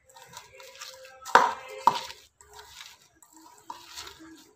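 Hand squeezing and mixing a moist grated coconut and shrimp paste in a stainless-steel bowl, a soft uneven rustling and squishing, with two sharp knocks against the bowl about a second and a half in, half a second apart.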